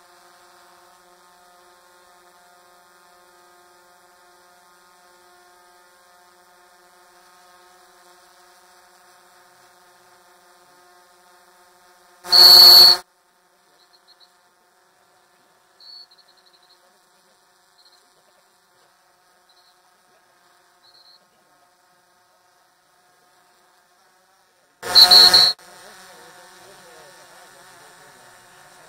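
Steady buzzing hum of a DJI Phantom 4 quadcopter's propellers hovering overhead. It is broken twice by a loud, brief blast, each about half a second long and about twelve seconds apart.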